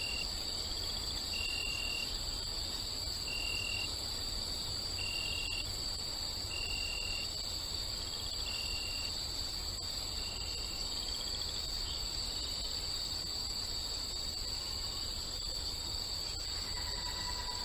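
Night-time outdoor ambience of an insect chorus: a steady, high-pitched trilling, with a short chirp repeating about every second and a half to two seconds. Near the end a lower steady tone joins in.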